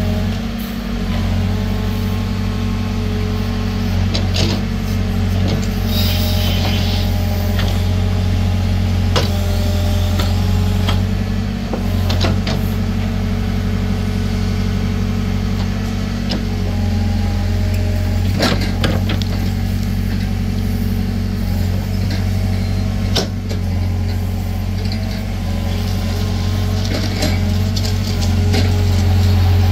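Diesel engine of heavy earthmoving machinery running under load, its note wavering up and down as it works. Several sharp metallic clanks come through at intervals.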